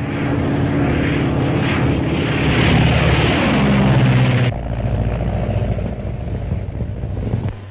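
Propeller airplane engine running at full power for takeoff, its note rising. About four and a half seconds in, the sound cuts abruptly to a duller, lower engine drone.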